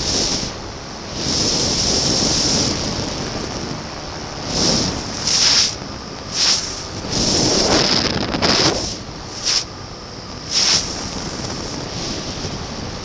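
Airflow buffeting the microphone on a flexwing microlight trike in flight: a constant rush broken by irregular loud gusts, several in the middle. Underneath runs the steady drone of the trike's Rotax 912 four-cylinder engine.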